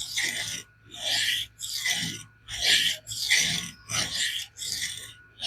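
Steel knife blade (a Spyderco Manix 2 LW in CPM SPY27) stroked freehand with light pressure across 60-micron aluminum oxide abrasive film, a hissing rasp on each stroke in a steady rhythm of about one and a half strokes a second. This is the finishing pass that clears the coarser 100-micron scratch pattern off the edge bevel.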